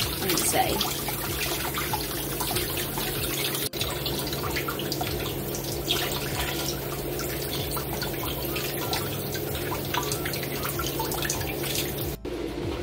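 Kitchen tap running and splashing into a stainless steel sink and a bowl of water as gloved hands rinse and rub a hassar catfish under the stream. The steady water noise breaks off for an instant twice.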